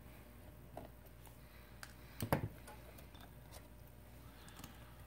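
Faint small clicks and taps of a smartphone's disassembled parts being handled by hand, with a short cluster of two or three louder clicks a little past two seconds in.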